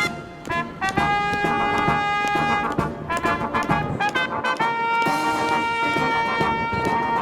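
Brass marching band playing a tune in held, sustained chords, with a brief break between phrases just after the start and another at the end.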